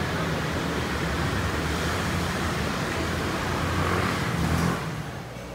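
Street traffic noise with a steady low engine hum, swelling briefly and then dropping away sharply near the end.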